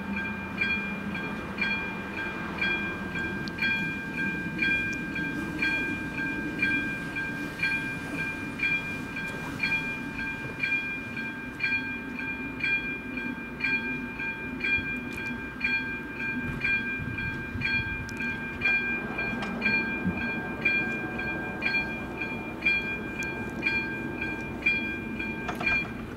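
Electronic warning bell of a Czech level crossing ringing in a quick, even rhythm, a little under two strokes a second, signalling an approaching train while the barriers come down; it stops shortly before the end.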